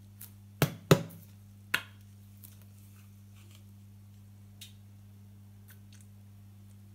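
Three sharp plastic clicks as the flip-top cap of a squeeze bottle of sauce is snapped open, followed by a few faint handling ticks, over a steady low hum.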